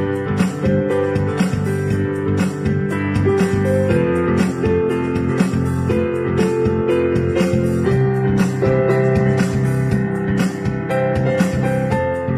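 Background instrumental music: a steady run of played notes over held chords.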